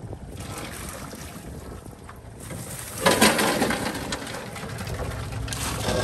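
Crawfish being shaken out of a mesh trap onto a sorting table: a loud rattling rush of shells and water about three seconds in that fades over a second or so, and a second, smaller one near the end, over a low steady background noise.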